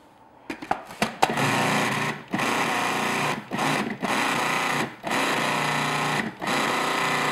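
Food processor motor pulsing: about six short runs of roughly a second each, mixing pastry dough after a tablespoon of ice water has been added, until it starts to hold together. A few light clicks come just before the first pulse.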